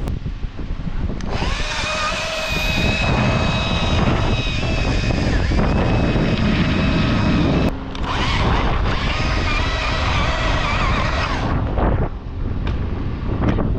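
Chainsaw running at high revs, likely cutting. It starts about a second in, dips briefly a little past halfway, and cuts out near the end.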